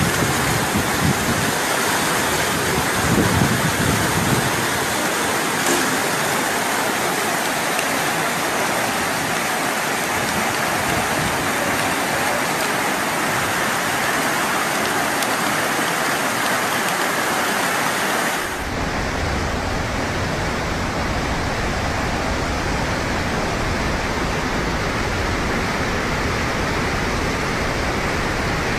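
Fast-moving muddy floodwater rushing, a loud steady wash of water. About two-thirds of the way through it changes abruptly to a deeper, rumbling rush of a larger torrent.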